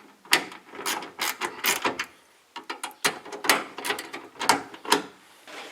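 Ratchet wrench worked in short strokes, sharp clicks in quick groups with a brief pause about two seconds in.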